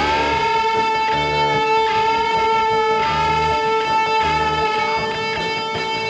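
Live rock band music: an electric guitar holds one long, sustained note that rings on with many overtones, over low bass notes repeating about once a second.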